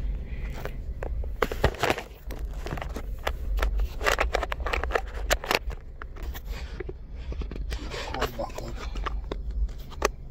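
Rustling, scraping and small knocks from a phone being handled and moved around inside a car, over a steady low rumble. A little muffled speech comes in near the end.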